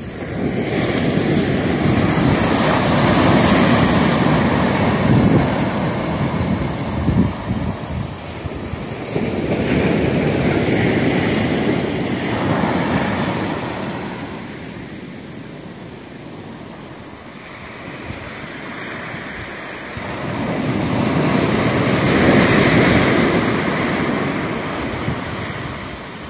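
Rough surf breaking and rushing up a sandy beach. The rushing swells and eases three times, with a quieter lull in the middle.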